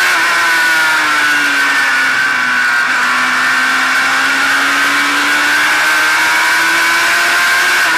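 Stock car racing engine heard from the car's own hood camera, running hard through a turn. The engine note drops over the first couple of seconds as the car slows for the corner, holds low, and climbs again near the end as it accelerates out.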